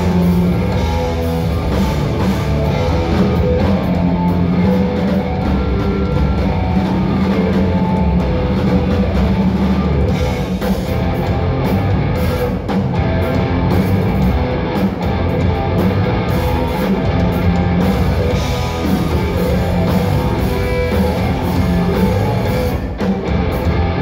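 Live rock band playing loud and steady: electric guitars over bass and a drum kit, heard through the theatre's PA.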